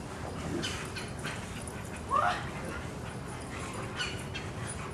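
A boxer dog gives one short, rising whine about two seconds in, over faint scattered rustling.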